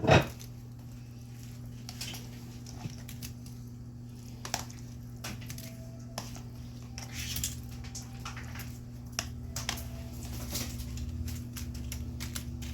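Meat being spooned onto fries on a baking tray: scattered soft taps and squishes. A steady low hum runs underneath.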